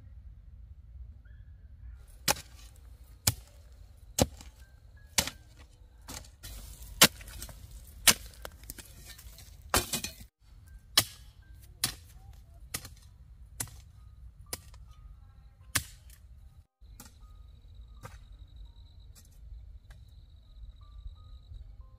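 Hand hoe chopping into dry, hard soil, a sharp strike about once a second for some fourteen strokes, with soil scraping between some of them. After the strokes stop, a faint steady insect trill.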